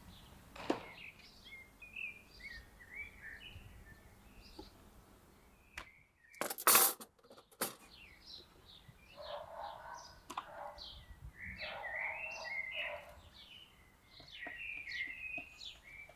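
Small songbirds chirping and twittering, with fuller bursts of song twice in the second half. A sharp knock comes just under a second in, and a brief, louder noisy clatter comes about six and a half seconds in.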